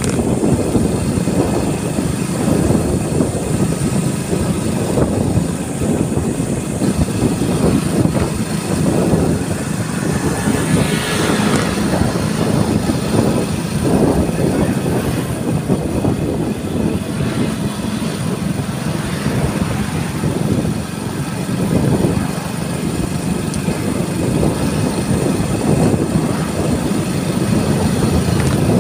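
A motorcycle running steadily at riding speed, its engine mixed with wind rushing over the microphone and road noise.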